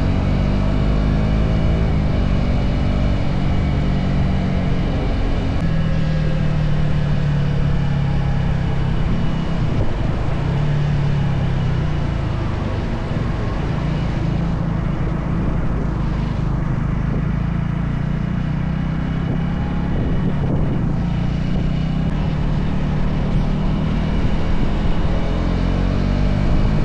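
A vehicle engine running on the move, its pitch slowly rising and falling with speed, under a steady rush of wind and road noise.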